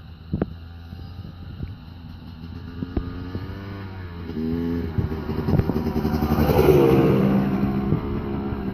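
Dirt bike engine revving up and down while riding. It grows louder to a peak about seven seconds in, then eases off a little.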